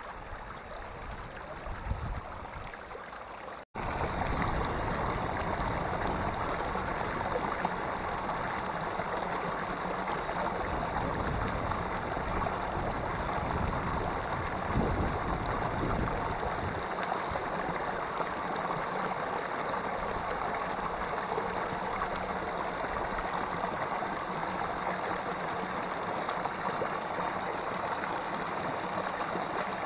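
Small mountain stream pouring over a rock ledge into a pool: a steady rush and splash of falling water. It breaks off for an instant about four seconds in and comes back louder.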